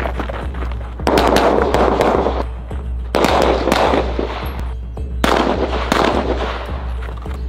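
Strings of semi-automatic pistol shots, many sharp cracks in quick succession, over background music with a steady low bass drone.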